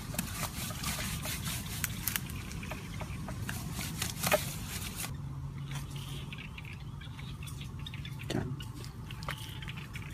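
Dry sandy soil being scraped and scooped out of a hole by hand and with a tool, with irregular scratching, crumbling soil and small knocks, one sharper knock about four seconds in. The scraping turns quieter about halfway through.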